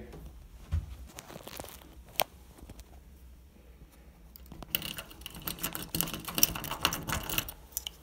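Steel lock pick and tension wrench scraping and clicking in the pin-tumbler keyway of a Kwikset deadbolt: scattered light clicks, one sharp click about two seconds in, then a dense run of rapid scraping and rattling from about five seconds to near the end, as the lock is picked open.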